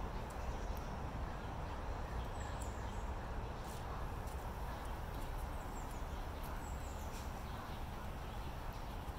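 Outdoor park ambience: a steady low rumble with a few faint, short high chirps from small birds scattered through it.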